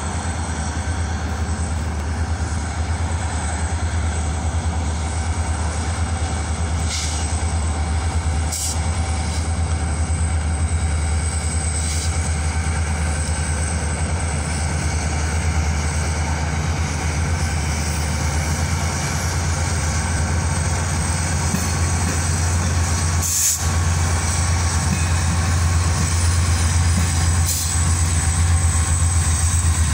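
CSX diesel freight locomotives, a steady low engine rumble that grows gradually louder as they approach and roll past. A few sharp clicks are heard along the way.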